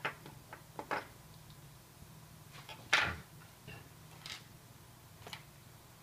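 A few light clicks and knocks from a small screwdriver being handled and set down on a wooden table, the loudest a single knock about three seconds in. A faint steady low hum runs underneath.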